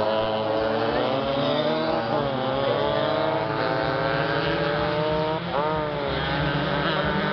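Several racing motorcycle engines running hard together around the circuit, their pitches rising and falling as they accelerate and change gear, with a quick dip and climb in pitch about five and a half seconds in.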